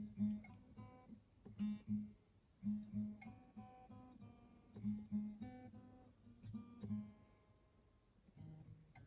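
Acoustic guitar playing a slow run of chords, each strummed or plucked and left to ring, about ten in the first seven seconds; the playing grows quieter near the end.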